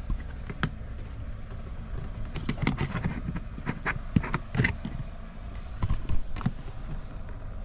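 Scattered clicks and knocks of a plastic interior trim piece being worked loose by hand.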